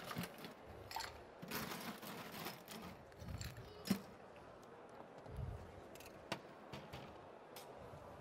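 Scattered clinks, taps and knocks of bar tools and glassware being handled at a cocktail counter, with one sharp clink about four seconds in and a few dull thumps.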